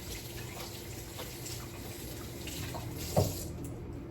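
Water running from a kitchen tap into the sink, shut off about three and a half seconds in, with a single knock just before it stops.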